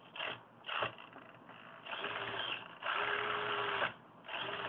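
Continuous-rotation (360°) hobby servo turning a small FPV camera, its motor and plastic gears whirring in three short runs of about half a second to a second each, with a steady buzzing tone. Two short clicks come about half a second apart near the start.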